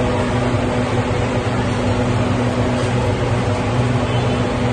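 A running machine makes a steady hum over an even rushing noise, unchanging throughout.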